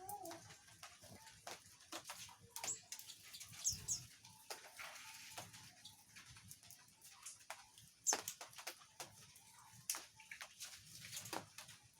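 Canaries in an aviary: a few brief, high falling chirps about three and four seconds in, among scattered sharp clicks and taps, the loudest about eight seconds in.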